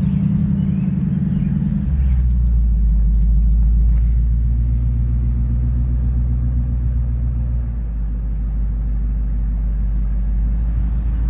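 A 2016 Ford Mustang GT's 5.0-litre Coyote V8 with a custom Borla exhaust idling with a steady, low rumble, its note shifting slightly about two seconds in.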